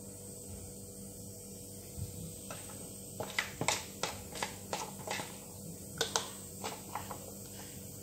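Irregular light clicks and clinks of ceramic dishes and a serving utensil being handled while food is plated, about a dozen sharp taps starting a few seconds in, over a low steady room hum.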